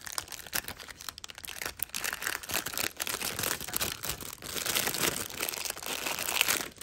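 Plastic bag crinkling and rustling as it is handled, a dense, irregular crackle that goes on throughout.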